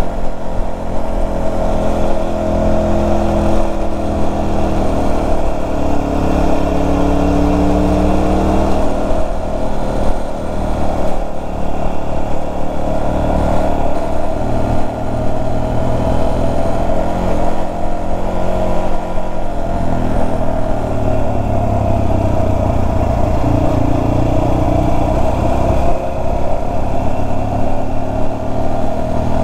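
Motorcycle engine running on the move, its pitch rising and falling with speed changes over a steady low rumble.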